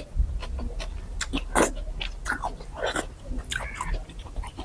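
Close-miked eating sounds: a person chewing a mouthful of mohinga, rice noodles in fish soup, with irregular wet smacks and clicks of the mouth.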